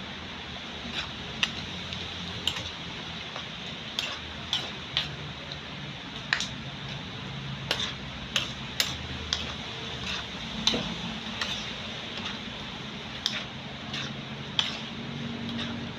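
Kitchen tongs stirring a pot of simmering mung bean soup, clicking irregularly against the pot's side, over a steady hiss.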